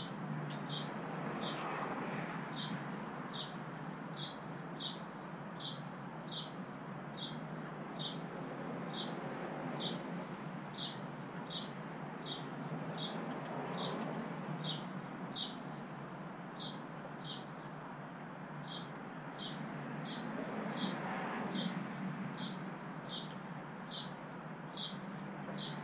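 A small bird calling a short, high, slightly falling chirp over and over, about one and a half times a second, with faint handling and rustling noises underneath.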